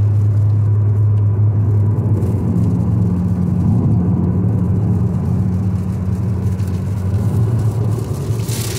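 Steady low drone of a car driving on a highway, heard from inside the cabin. Near the end, rain starts hitting the windshield and adds a hiss.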